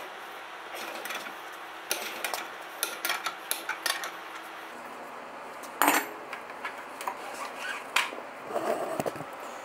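Metal tools clinking and knocking as a steel bar is worked in a crankshaft straightener clamped on a lawnmower crankshaft: a run of light clicks, then a sharp metallic clank just before six seconds in and a short rattle near the end.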